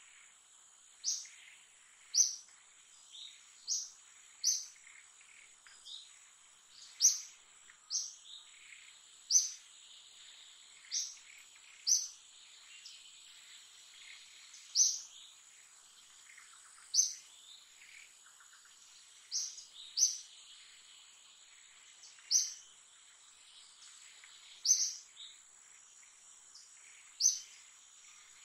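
Forest ambience: a bird calling with short, high, sharp notes repeated every one to two and a half seconds, over a steady high-pitched insect drone.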